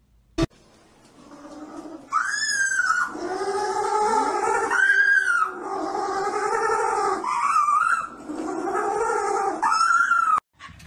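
A puppy howling and whining in a string of drawn-out cries, each about a second long, rising and then falling in pitch. The cries come one after another from about two seconds in, after a short sharp click, and stop abruptly near the end.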